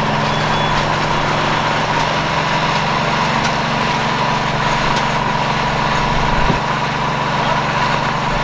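An engine idling steadily, an even running sound with a thin high whine over it.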